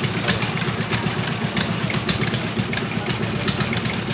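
An engine idling steadily, a low pulsing rumble, with scattered faint clicks over it.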